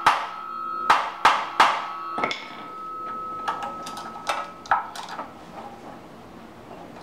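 Hammer blows on a steel punch seated in the Allen head of a tight clutch set screw, struck to shock the threads loose: about five sharp, ringing metal strikes in the first two and a half seconds, the ring lingering after them. A few lighter metal clicks follow.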